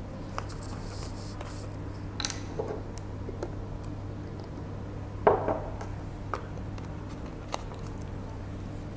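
Light clicks and knocks from a carton of coconut water and a ceramic mug being handled: its plastic screw cap twisted off and back on, and the carton or mug set down, with the loudest knock about five seconds in.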